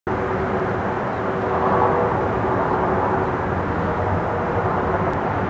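Distant Boeing 747 cargo jet coming in on approach: a steady jet engine noise with a few faint held tones through it.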